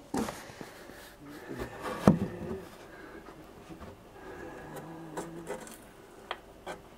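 Light knocks and rubbing from the wooden doll's house being handled, with a sharp knock about two seconds in and a few smaller clicks later on.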